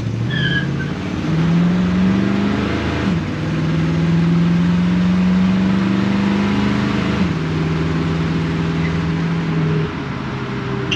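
V8 car engine under way, most likely the 1965 Mustang GT350H's 289 V8: revs climb over the first three seconds, then the pitch steps down about three, seven and ten seconds in.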